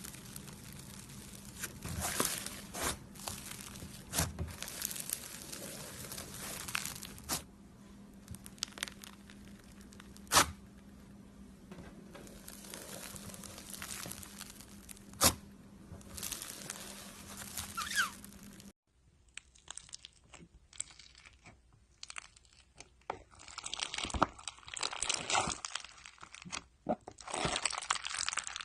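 Slime being squeezed and stretched by hand, giving continuous crunching, crackling and tearing sounds with scattered sharp pops, two of them much louder. About two-thirds in, after a cut, the crackling becomes denser.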